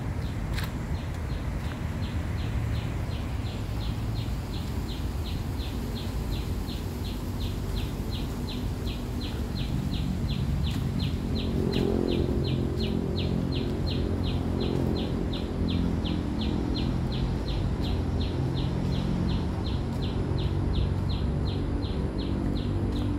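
An animal calling with short high chirps repeated evenly, about two and a half a second, over a steady low rumble.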